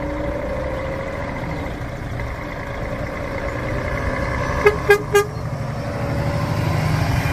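Scania car-transporter truck's diesel engine running, its rumble growing louder as it comes close. Three short horn toots sound about five seconds in.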